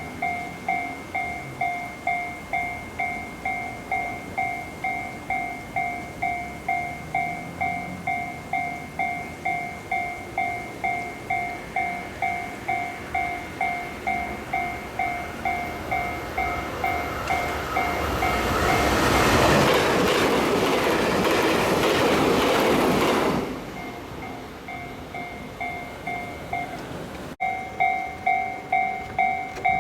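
Japanese level-crossing warning bell dinging steadily at about one and a half strikes a second. A train rushes past in the middle for about five seconds, loud enough to drown the bell. Near the end the bell returns louder.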